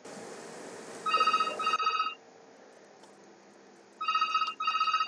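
A telephone ringing in a double-ring pattern: two pairs of short electronic rings about three seconds apart. About a second of soft hiss comes before the first ring.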